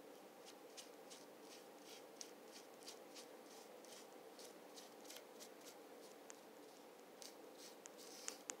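Faint, short strokes of a paintbrush's bristles dabbing white paint onto a pedestal's raised relief, a few strokes a second.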